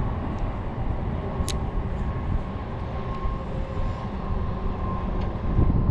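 Wind rumbling on the microphone, a steady low noise, with a single sharp click about a second and a half in.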